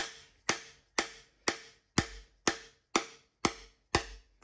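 Hammer blows on a 13 mm socket on an extension, used as a driver to knock the old camshaft bushing out of a Cummins 6.7L engine block: steady sharp strikes about two a second, each with a short metallic ring.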